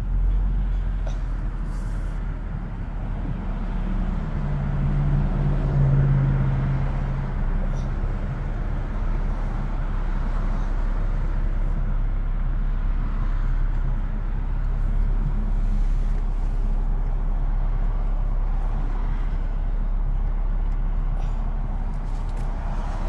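Car engine idling, heard from inside the cabin as a steady low hum. A deeper engine tone swells for a few seconds about five seconds in, with a few faint clicks scattered throughout.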